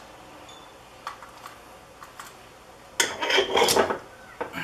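A plastic Longworth chuck being handled and fitted: a few light clicks, then about a second of loud rattling and scraping about three seconds in, and another click near the end.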